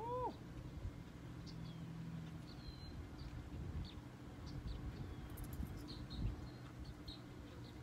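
Small birds chirping now and then over a quiet outdoor background, with one short rising call at the very start. About six seconds in, a single dull thump: a driver striking a teed golf ball.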